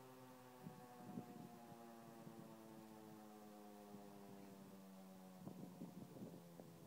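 Federal Signal tornado siren winding down: a steady multi-toned wail falling slowly in pitch. A few soft crackles come about a second in and again near the end.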